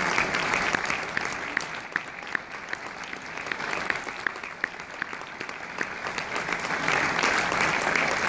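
Audience applauding. The clapping thins out about two seconds in, with single claps standing out, then swells again near the end.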